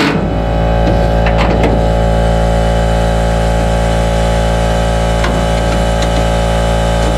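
A steady, unchanging motor drone, like an engine running at a constant speed, with a few short sharp clicks about a second in and again past five seconds.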